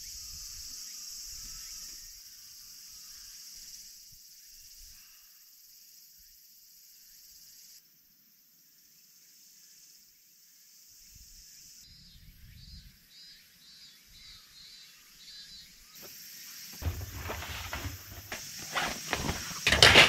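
Quiet outdoor ambience with insects chirping in a steady high hiss, fading to near silence for a couple of seconds, then a faint pulsing insect call. In the last few seconds come handling noises and knocks as metal camp-stove parts are set out.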